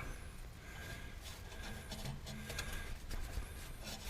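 A small brush scrubbing and scratching faintly and irregularly inside a lawn tractor's air cleaner housing.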